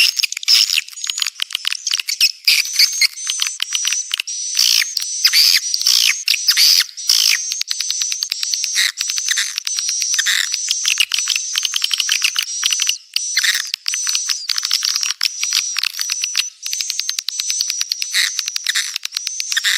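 Swiftlet call recording: many swiftlets twittering in dense, high-pitched chirps mixed with rapid trains of clicks, with no pause. It is a 'birahi' (breeding) lure call of the kind played from swiftlet houses to draw birds in to nest.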